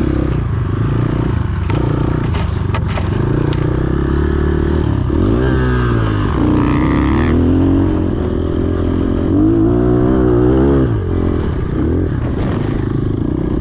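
Dirt bike's single-cylinder engine being ridden, its pitch rising and falling with the throttle, with two stronger revs about five and ten seconds in. A few knocks and rattles come a couple of seconds in.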